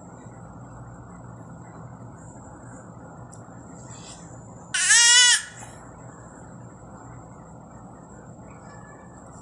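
One short, high, wavering cry, about half a second long, over a steady low background hum.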